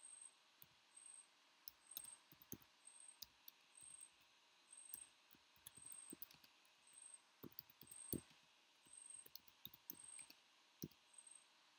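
Faint typing on a computer keyboard: irregular key clicks at an uneven pace, a few of them louder.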